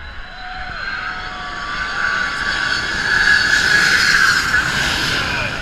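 Boeing 747 jet engines passing low overhead on final approach: a jet roar with a high whine that builds steadily, is loudest about three to five seconds in, then eases slightly.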